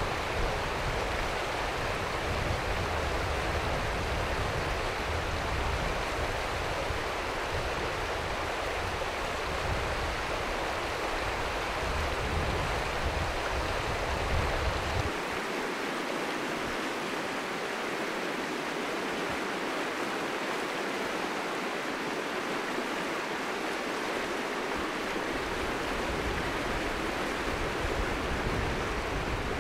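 River water rushing steadily. A low rumble under it stops abruptly about halfway through.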